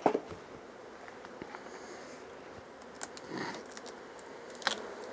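A sharp knock near the start, then a few light clicks and scrapes as a wire queen excluder is pried up off a beehive box with a hive tool, over a faint steady hum of honey bees.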